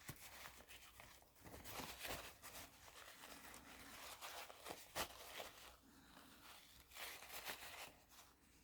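Faint irregular scratching and scraping with small clicks, from cleaning into the crevices around a Swiss Army knife's hook tool, with one sharper click about five seconds in.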